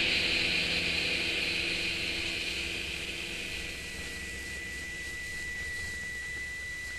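The last of a shoegaze song played from a 7-inch flexi disc, fading out. A hissy wash of guitar sound dies away over the first few seconds, leaving low rumble and noise with a thin steady high tone from about halfway.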